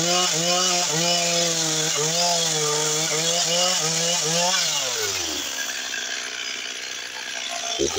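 Stihl chainsaw cutting into a log, its engine note wavering under load. About four and a half seconds in, the throttle is released and the engine winds down to a faint idle. A sharp click comes near the end, and the saw revs up again.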